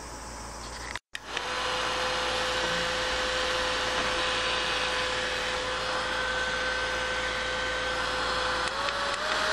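Small handheld bladeless fan's brushless motor and impeller running, a steady rush of air under a steady whine. A little before the end the whine steps up slightly in pitch, as the motor speeds up.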